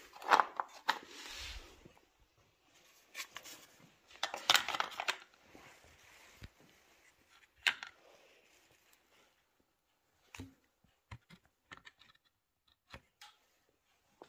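Hard plastic scooter cooling shrouds being handled and fitted: scraping and rustling with sharp clicks and knocks in a few bursts over the first five seconds, a single sharp click near the middle, then scattered light clicks.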